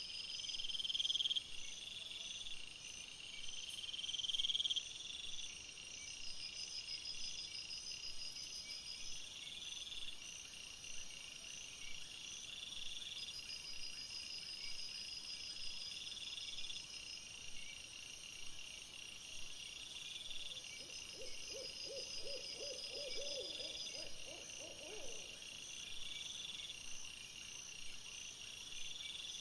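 Night chorus of high-pitched chirping trills repeating every couple of seconds, the two loudest rising about one and four seconds in. About 21 seconds in, a lower call of quick repeated pulses lasts about four seconds.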